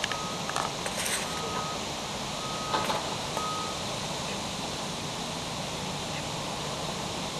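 Short, high electronic beeps on one steady pitch, four in the first four seconds, over a steady background hiss that runs on alone after them.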